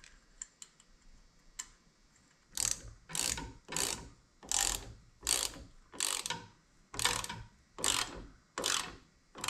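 Hand ratchet wrench clicking in repeated strokes as it turns a bolt on an outboard's water pump housing. After a couple of seconds of faint clicks, about ten strokes come at an even pace, a little under one a second.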